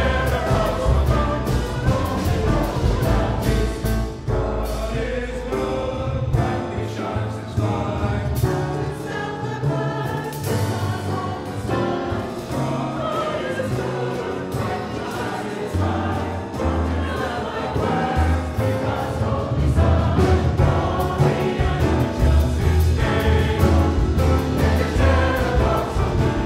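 Mixed choir singing, accompanied by grand piano, upright double bass and drums.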